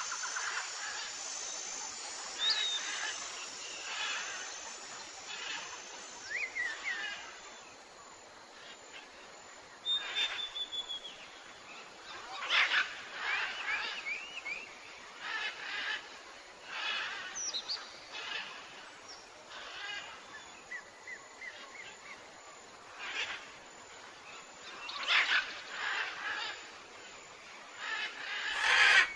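Birds chirping in short, scattered calls, some with quick pitch sweeps, mixed with brief sharper bursts of sound.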